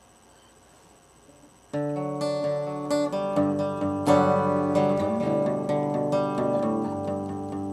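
Steel-string acoustic guitar starting to play about two seconds in, after near silence: plucked notes and chords that ring on, with fresh attacks every half second or so.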